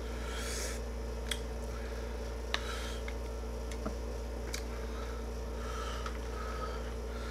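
A few light clicks and soft wet rustles of chopsticks lifting ramen noodles into a small plastic container. A room air conditioner hums steadily underneath.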